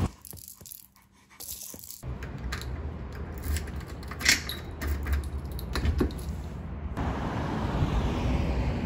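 Keys on a keyring jangling and clicking as a key goes into a door lock and turns, with one sharp click about four seconds in. Near the end, steady traffic noise of a city street takes over.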